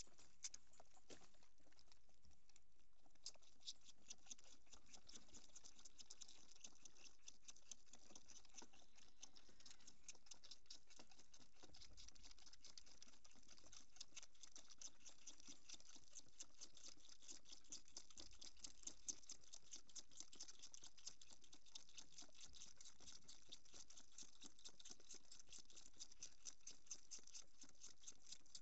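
Two goat kids sucking milk from bottle teats: a faint, fast, steady run of soft wet clicks that starts about three seconds in and keeps going.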